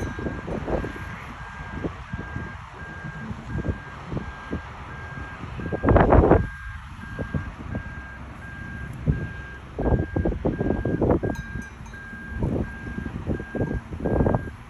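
A vehicle's reversing alarm beeping steadily at an even pace over irregular low buffeting on the microphone. The buffeting comes in louder gusts about six seconds in and again near the end.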